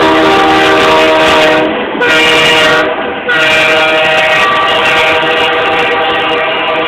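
BNSF freight locomotive's air horn blowing as the train passes close by at speed: a long blast, a short one, then another long one that holds to the end. Under it is the noise of the train passing.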